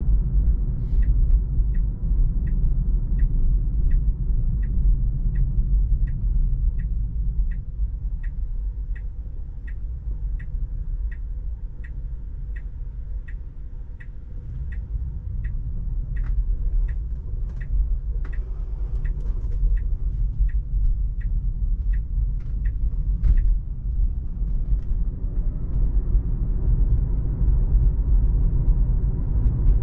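Road and tyre rumble inside an electric Tesla's cabin while driving, easing off around the middle as the car slows for a turn and building again as it speeds up. Over it, the turn signal ticks evenly, about one and a half times a second, and stops about three-quarters of the way through.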